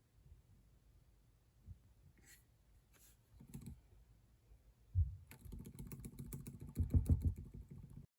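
Typing on a MacBook Pro laptop keyboard: a few scattered key clicks, then about five seconds in a quick, irregular run of key presses with soft low thumps.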